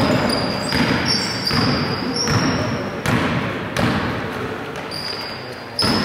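A basketball being dribbled on a wooden gym floor, bouncing about once every three-quarters of a second, with short high sneaker squeaks on the court.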